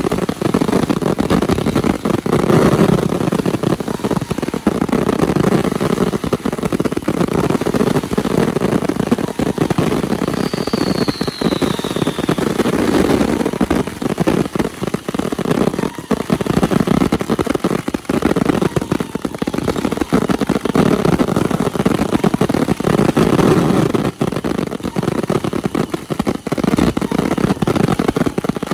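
Fireworks finale: a dense, unbroken barrage of rapid bangs and crackling, with a brief falling whistle about ten seconds in.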